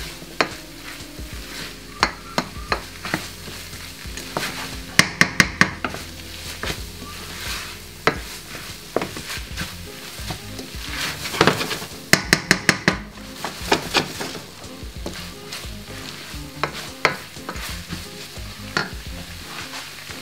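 Wooden spoon stirring minced beef and kidney beans in a stainless steel saucepan, scraping and knocking against the pan, while the mixture sizzles. Two runs of quick knocks come about five seconds in and again about twelve seconds in.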